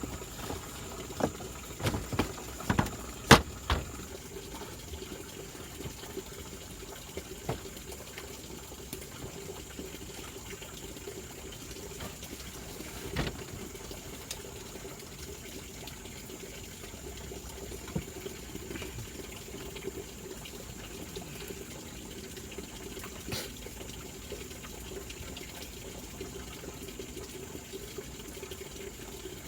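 Steady rush of running water, with a handful of sharp knocks in the first few seconds, the loudest about three seconds in.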